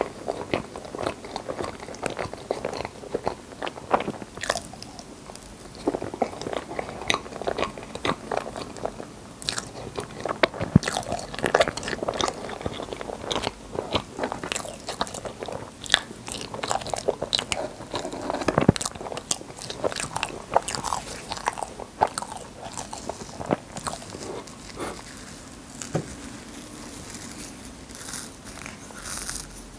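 Close-miked wet chewing and lip smacking of soft, cream-layered rainbow crepe cake, with many short clicks and an occasional fork cutting into the cake.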